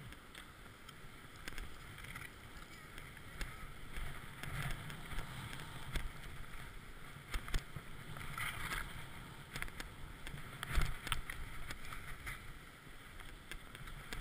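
Skis sliding and turning through powder snow on a downhill run: a continuous hiss with a swish at each turn, the loudest about eleven seconds in, and a few small knocks.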